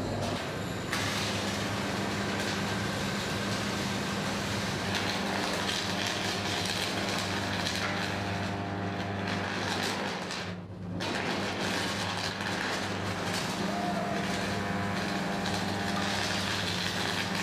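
Steady industrial din of an aluminium smelter shop floor: a dense machinery roar over a low electrical hum. It drops briefly about ten and a half seconds in, then resumes.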